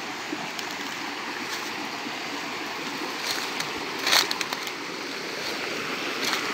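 Small rocky forest stream running over stones in a little cascade, a steady rushing. A few light clicks, with one sharper knock about four seconds in.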